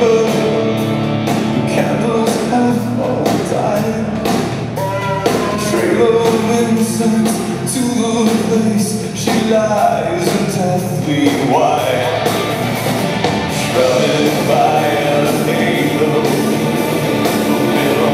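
Gothic rock band playing live: a man singing lead over drums, electric guitars and bass guitar, with the roomy sound of a concert hall.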